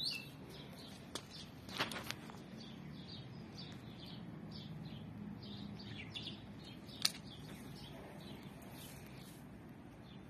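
Small birds chirping repeatedly in short high calls, with a few sharp clicks around two seconds in and another near the seven-second mark.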